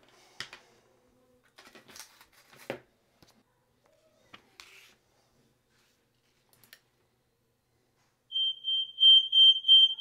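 A few faint clicks and knocks, then about eight seconds in Aico smoke alarms start sounding: a loud, high-pitched alarm tone pulsing about three times a second. The alarms have been set off remotely through a relay wired to the panel interface module's alarm-in terminal.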